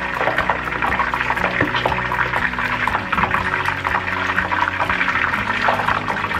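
Battered chicken pieces deep-frying in a pot of hot oil: a steady, busy sizzle and crackle of the oil bubbling around the pieces.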